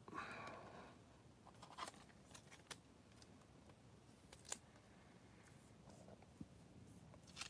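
Near silence with faint handling of chrome trading cards: a soft rustle, then a few light clicks as the cards are slid and tapped against each other in the hand.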